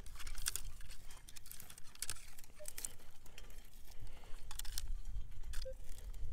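Dry straw stubble and hard soil clods crackling and crunching in quick, irregular bursts as a metal detector coil is swept low over them and the ground is walked across.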